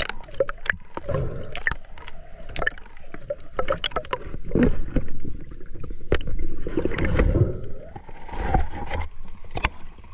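Water gurgling and moving around an underwater camera, with many sharp clicks and taps scattered through it and louder surges of water noise about four and seven seconds in.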